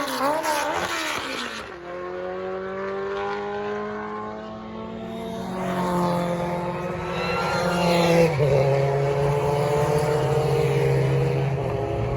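Historic Formula 2 race car engines running hard, the engine note climbing slowly in pitch and growing louder, with a sudden drop in pitch about eight seconds in.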